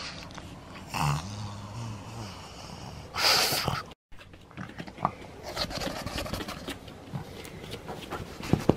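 Pug's breathing and grunting close to the microphone: a low grunt lasting about a second starts about a second in, and a loud noisy huff of breath comes a little after three seconds. After that, scattered clicks and rustling follow as she moves about.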